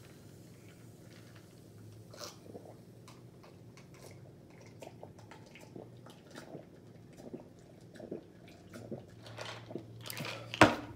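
Close mouth sounds of a man drinking sparkling lemonade from a plastic cup and eating: quiet sips, swallows and small wet clicks, with one louder short sound near the end.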